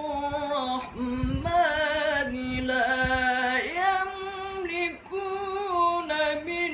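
A single voice reciting the Quran in a melodic, chanted style, drawing out long held notes with ornamented turns and pausing briefly between phrases.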